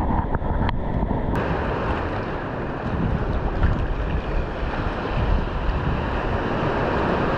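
Wind buffeting the microphone over small ocean waves washing around pier pilings: a steady rush of noise.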